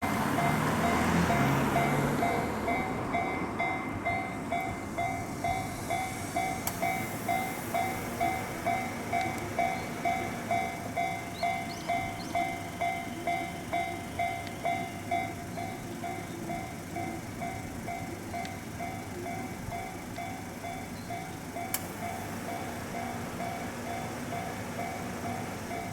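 Japanese level-crossing warning bell ringing, a repeated electronic two-tone ding at about two strokes a second. A loud rumble of noise sits under it in the first two or three seconds.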